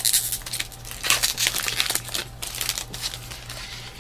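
Trading-card pack wrapper crinkling in bursts as it is torn open and handled, busiest in the first half.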